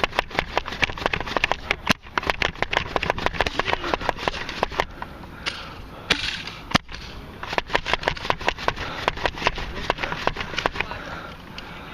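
Rapid, irregular clicks and clacks of Nerf blasters being primed and fired during a skirmish, several sharp knocks a second with a few louder cracks.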